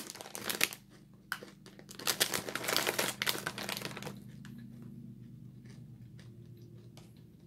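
Foil-lined plastic snack bag crinkling as it is handled. The crinkling comes in a short burst at the start and a denser, louder stretch of about two seconds in the middle, then dies down to faint rustles.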